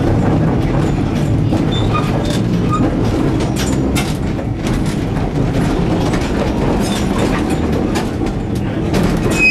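Vintage tram car running along the track, heard from inside the car: a steady low rumble with irregular clicks and knocks from the wheels and the car body.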